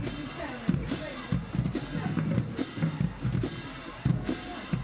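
Marching band drums playing a steady beat, a heavy hit landing a little under once a second, with crowd voices underneath.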